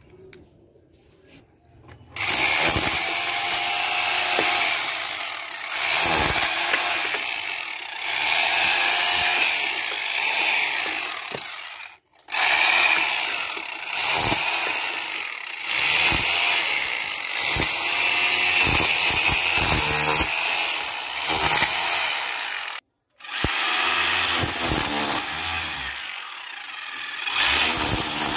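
Bosch GBH 220 rotary hammer in chisel mode, its flat chisel bit hammering into brick, plaster and mortar. It starts about two seconds in and runs in long stretches, stopping briefly twice.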